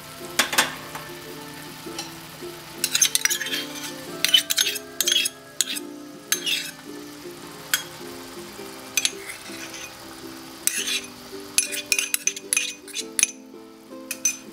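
Metal spoon clicking and clinking against a steel wok in short clusters as sauces are spooned into a shallow simmer of garlic and chilies, with light sizzling underneath. Background music with a slow melody runs beneath.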